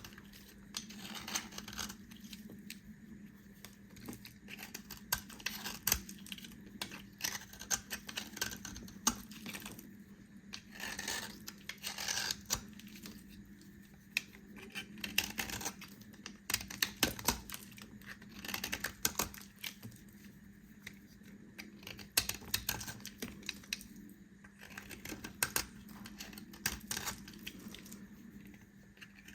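Bar soap being cut with a knife: crisp, crackling crunches and clicks in irregular clusters as the blade works through the soap.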